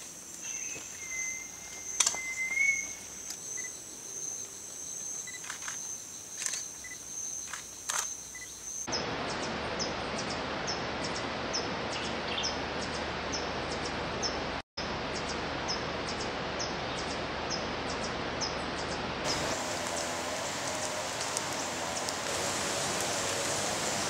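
Tropical forest ambience made of edited-together clips. First a steady high insect trill with a short whistle and a few light clicks. About nine seconds in it cuts to a louder, even hiss with rapid high insect ticking, and near the end to a plain steady hiss.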